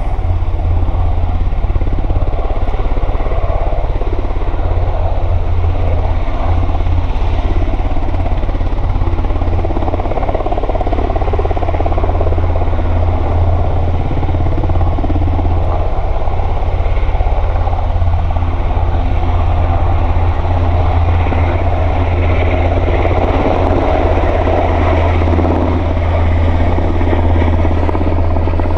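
Sikorsky S-92A helicopter running loud and steady at close range: its twin turboshaft engines and rotors make a strong, constant low hum under a dense rotor noise. The noise swells slightly about three-quarters of the way through.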